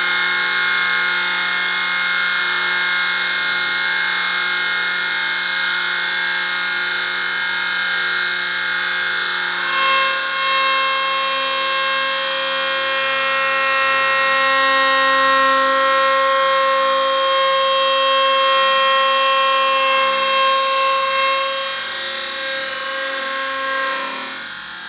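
Chainsaw running steadily at high speed. About ten seconds in there is a click and its tone shifts.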